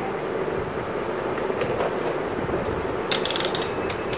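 A quick run of small clicks about three seconds in, from a digital multimeter's rotary range selector being turned through its detents. A steady hum runs underneath.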